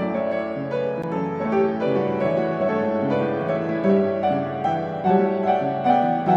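Background piano music: a steady run of notes in a gentle melody.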